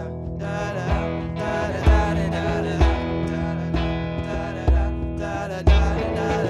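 Live band music: a sunburst Les Paul-style electric guitar strummed over keyboard and hand drum, with a low beat landing about once a second.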